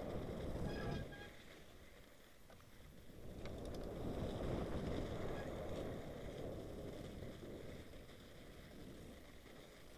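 Mountain bike tyres rolling through snow on a descent: a rough rushing noise that swells in the first second and again in the middle, then eases off, with a few faint clicks.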